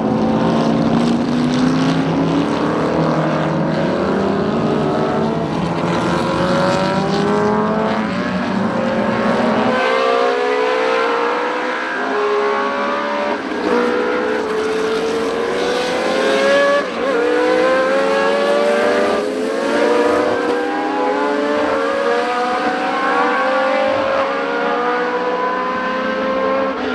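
Historic racing car engines running hard on track, their pitch repeatedly climbing through the revs and dropping back at each upshift, with several cars overlapping. About ten seconds in the deep rumble drops away abruptly and the higher engine notes carry on.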